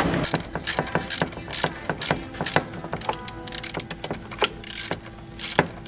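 Socket ratchet clicking as it backs out the 10 mm bolts holding a throttle body: a run of sharp clicks about two a second, quicker around the middle.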